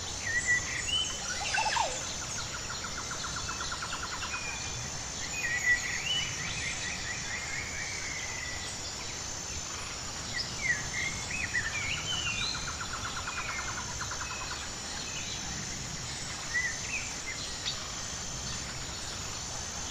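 Several birds singing and calling in short chirps and whistled phrases, with two rapid trills, over a steady high-pitched pulsing insect chorus and a background hiss.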